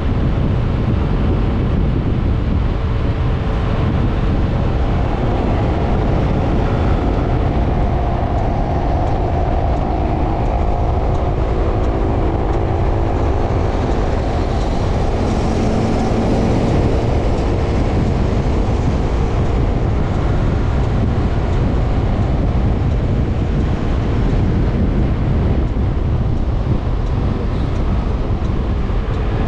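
Steady wind rush over the microphone from a scooter being ridden at road speed, with the scooter's engine running underneath as a faint, slowly shifting hum.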